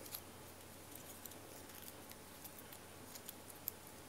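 Faint rustling and small scattered ticks of hands unwinding a coiled charging cable and pulling at its wrapping.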